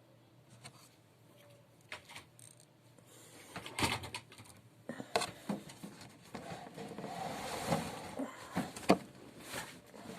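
Clicks, taps and scraping of small parts and tools being handled while soldering a broken lead back onto an electric drill's carbon brush. A spell of rough hissing noise comes midway, and a few sharp knocks near the end.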